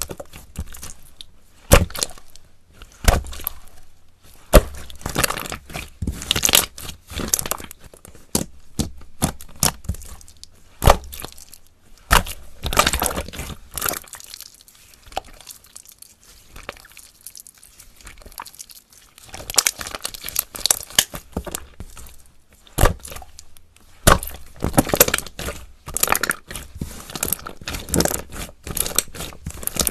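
Slime being mixed and squished by hand, giving irregular sticky crackles and pops, with a quieter stretch midway.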